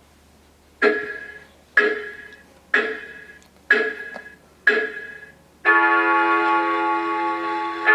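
Animated grandfather clock decoration's speaker playing five bell-like clock strikes about a second apart, each ringing and fading, then a sustained organ-like chord of music begins about two seconds before the end.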